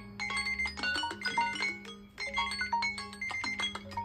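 Timer alarm tones from several Android phones and a Samsung Galaxy Tab A7 tablet ringing at once: overlapping chiming melodies that loop about every two seconds over a steady low tone. All are signalling that their countdowns have run out.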